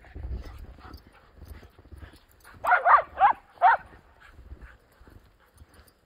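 A dog barking four times in quick succession about three seconds in, over soft crunching footsteps in deep fresh snow.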